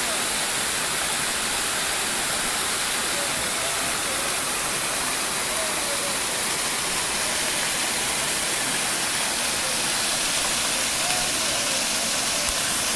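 Small waterfall spilling over rock ledges into a creek pool: a steady, even rush of falling water.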